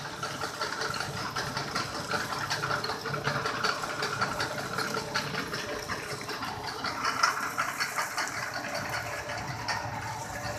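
Textured soya protein extrusion line running: a steady machine noise with fine clattering throughout.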